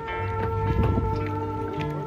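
Background music with held notes over a steady bass line.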